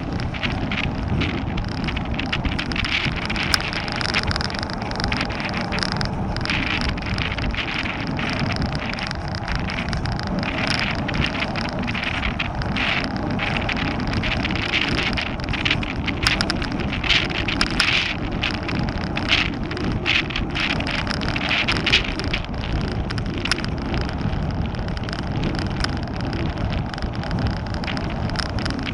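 Wind buffeting the microphone and tyre rumble from a bicycle rolling over asphalt, with frequent small rattles and clicks.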